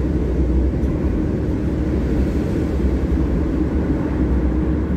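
Steady low rumble of a car's tyres and engine heard from inside the cabin while driving at speed through a road tunnel.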